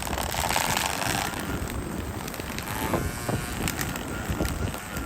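Ryobi 18-volt cordless string trimmer, mounted on its wheeled mower deck, running and cutting grass with a steady noise and crackle of line striking the lawn. Wind buffets the microphone.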